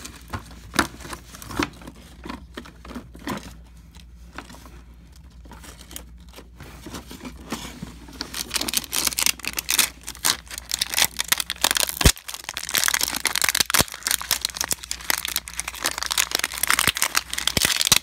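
Scattered clicks and light rustling of small objects being shuffled in a drawer. From about eight seconds in, steady crinkling and tearing of a clear plastic shrink-wrap pack as AA batteries are pulled out of it, with a few sharp clicks.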